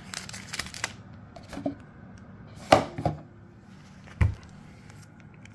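Handling noise: a few separate sharp taps and knocks as foil trading card packs and a cardboard box are moved about and set down on a wooden tabletop, the loudest knock about two and a half seconds in and a duller thump a little after four seconds.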